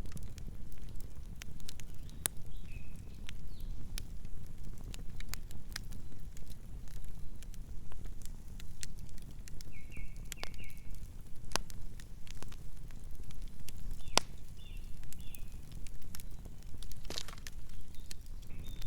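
Campfire burning with frequent irregular sharp crackles and pops over a steady low rumble of the flames.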